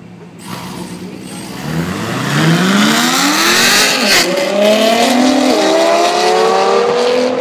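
Two high-performance cars in a roll race at full throttle side by side, their engines rising in pitch and growing louder as they approach, with gear shifts about four seconds in and again a second and a half later.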